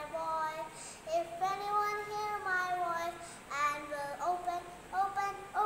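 A young girl singing solo with no accompaniment, in long held notes that slide from one pitch to the next, with short breaks between phrases.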